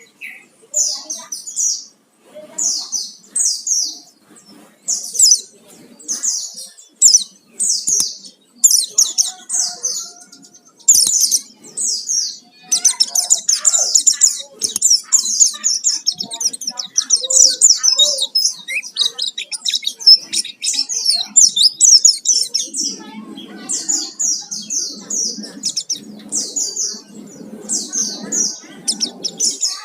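White-eye (pleci) singing in quick, high chirping phrases. The song comes in short bursts at first, runs almost without a break through the middle, then falls back to bursts. A low murmur of background noise joins in for the last several seconds.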